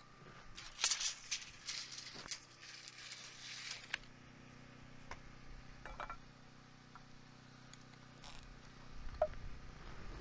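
Light clicks, taps and rattles of hand work on framing lumber: a busy cluster in the first few seconds, then scattered single clicks. Under them runs the faint steady hum of a generator, and a low rumble builds near the end.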